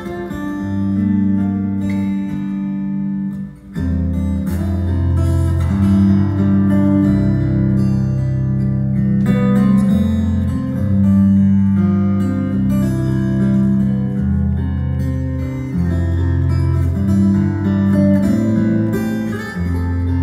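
Solo acoustic guitar played fingerstyle: held low bass notes under a melody line. The playing drops away briefly about three and a half seconds in before the next phrase.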